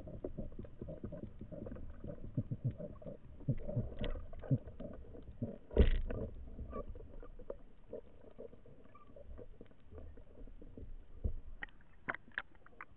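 Muffled underwater knocking and clicking picked up by a speargun-mounted camera in its waterproof housing as the diver swims, with one louder thump about six seconds in. Near the end, a few sharper clicks come as the camera breaks the surface.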